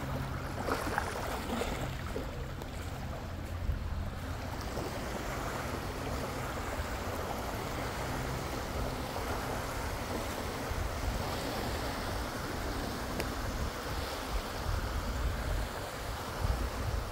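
Small Lake Superior waves washing onto a sandy beach in a steady wash, with wind rumbling on the microphone.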